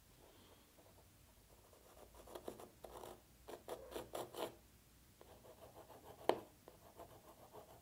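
Pencil scratching on a wooden pen blank in a run of short strokes from about two seconds in, lighter strokes after, and one sharp tap near the end.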